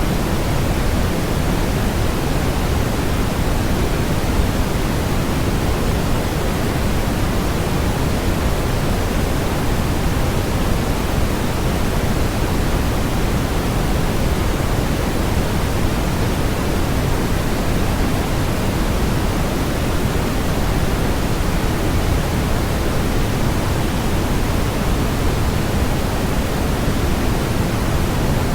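Steady generated white noise: an even, unbroken hiss that is fuller in the low end than in the high, with no change in level.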